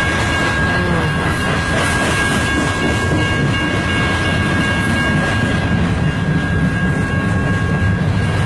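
A long mixed freight train's cars rolling steadily past, a continuous rumble with wheels clacking over the rail, going pretty quick. A thin steady high tone runs over it.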